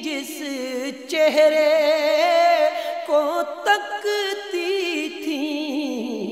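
Devotional naat singing by male voice: long, wavering held notes with heavy vibrato, layered over a sustained vocal backing.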